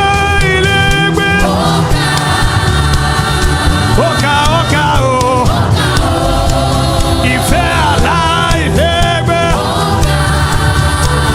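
Gospel worship music: a choir and congregation singing with band accompaniment and a steady bass.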